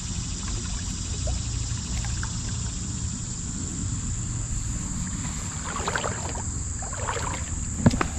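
A hooked trout splashing now and then at the surface as it is played in close, over a steady low rumble of wind and moving water and a constant high insect drone. A sharp click comes near the end.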